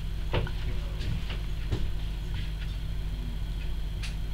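A knife chopping bananas on a cutting board: a string of sharp, irregular knocks over a steady low hum.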